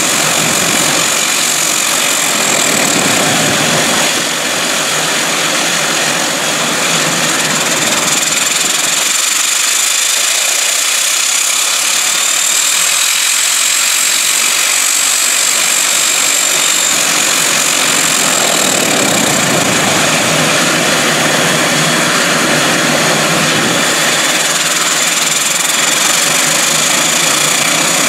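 Embraer 120 Brasilia's Pratt & Whitney PW118 turboprop engines running steadily at idle: a broad propeller-and-exhaust rush with a thin, high turbine whine over it.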